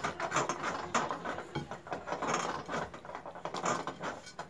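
Hands kneading a stiff egg dough for mantı in a glass bowl: a steady run of soft pushes and squishes, two or three a second.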